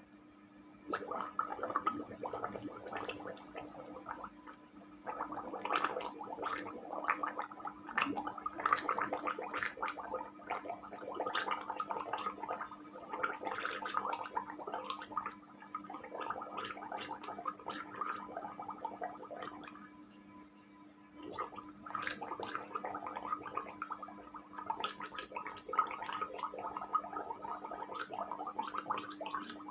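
A person gargling water in the throat, in several long bouts with short pauses between them. A steady low electrical hum runs underneath.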